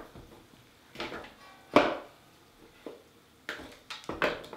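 Bone-dry clay scraps snapping and crackling as they are broken apart by hand: a handful of sharp, separate cracks, the loudest about two seconds in.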